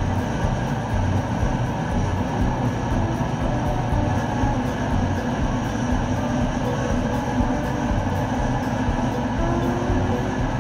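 Steady engine and road noise heard from inside the cab of a vintage Ford pickup cruising at highway speed.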